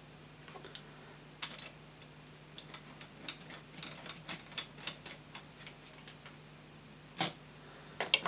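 Small hand screwdrivers clicking and scraping against a 3D-printed plastic locomotive chassis as the buffer bolts are turned in: a run of light, irregular ticks, with one sharper knock about seven seconds in.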